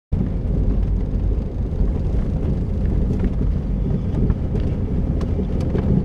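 Car driving along a road, heard from inside the cabin: a steady low rumble of engine and tyres, with a few faint clicks.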